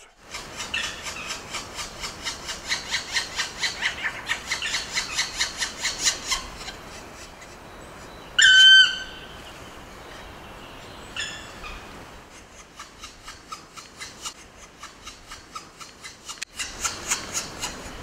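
Black woodpeckers at their nest hole in a beech trunk. A rapid, rhythmic rasping series of about five calls a second, typical of nestlings begging, runs for the first six seconds and returns faintly near the end. About eight seconds in comes one loud, clear call, slightly falling in pitch, and a fainter one follows a few seconds later.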